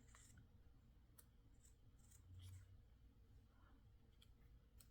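Near silence, with a few faint, scattered snips of scissors cutting out a shape.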